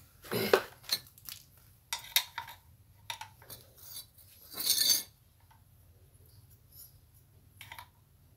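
Metal clinks and knocks as a steel mounting bracket is handled and set against a small engine's housing, a few sharp ones over the first five seconds with a louder clatter about five seconds in.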